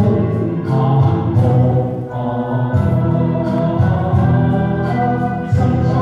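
A man and a woman singing a Cantonese pop duet into microphones, over instrumental accompaniment.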